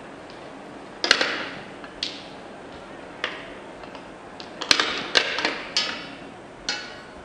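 Glass marbles clacking against each other and against the plastic bowl and track pieces of a marble-run soccer table, each hit a sharp click with a short ring: one about a second in, a few scattered ones, then a quick cluster between about four and a half and seven seconds.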